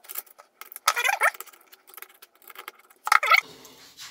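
Small steel machine-vise parts clinking and scraping together as they are handled and fitted by hand, with light clicks throughout and two louder clattering bursts, about a second in and about three seconds in.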